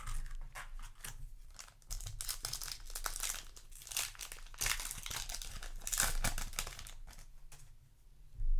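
Foil trading-card booster pack crinkling and tearing open, in irregular bursts of crackle.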